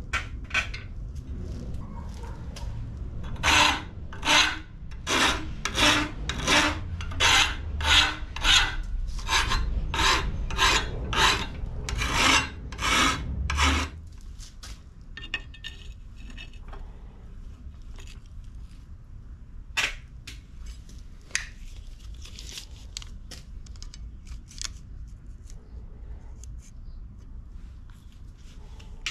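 Hand file scraping across the cut end of a steel angle clamped in a bench vise: steady back-and-forth strokes, a little under two a second, that stop abruptly about halfway. After that only faint scattered clicks of metal being handled.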